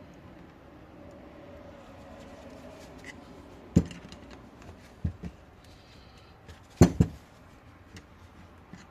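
About five sharp metal knocks and clinks as a tool is worked against a rusted ATV brake caliper to pry it apart. The loudest is a close pair about seven seconds in, over a faint steady hum.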